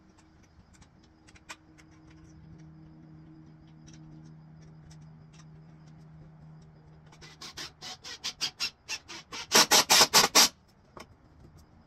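A run of quick, sharp rasping strokes, starting about seven seconds in and growing louder and faster, loudest just before they stop near the end, as a part is fastened at the front of the truck behind the grille.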